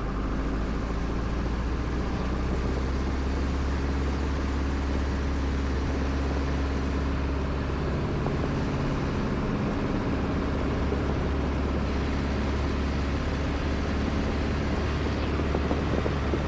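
Piper J-3 Cub's engine at full takeoff power, a steady drone through the takeoff roll and lift-off, shifting slightly in pitch about halfway through.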